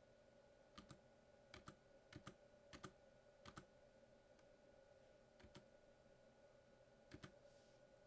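Faint, irregular keystrokes on a computer keyboard: short clicks, often in pairs, coming in small clusters about once a second. A faint steady hum runs underneath.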